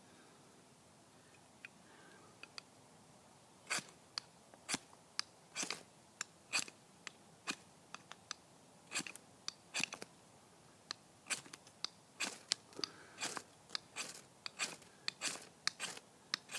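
Knife blade working in short, irregular scrapes and crunches, starting about four seconds in and coming quickly, sometimes two or three a second.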